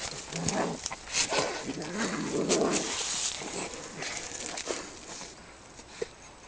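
Two domestic cats fighting: drawn-out growling yowls and hisses for about the first three seconds, then quieter as they lie grappling.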